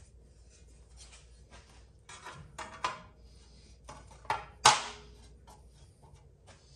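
Metal engine parts being handled and fitted at the flywheel end of a Nissan VG30 V6: scattered light clicks and scrapes, a few knocks, and one loud metallic clank a little past the middle.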